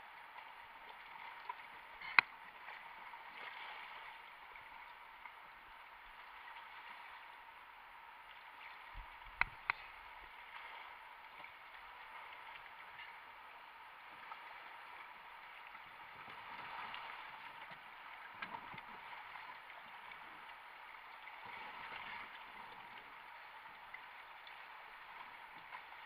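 Flowing river water rushing past a kayak as a steady hiss, swelling a little now and then. A sharp knock sounds about two seconds in, and two more come close together near the middle.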